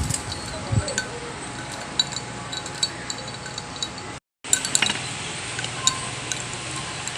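Light clinks and taps of small objects being handled, scattered over a steady hiss. The sound drops out completely for a moment a little past four seconds in.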